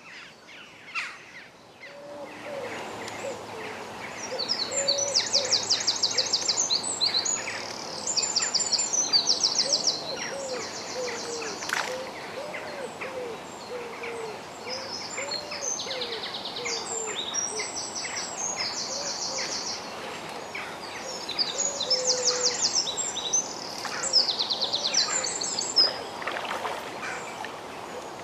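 Dawn birdsong: songbirds singing loud, fast trilling phrases a few seconds long, again and again, over a steady run of low, soft hooting calls.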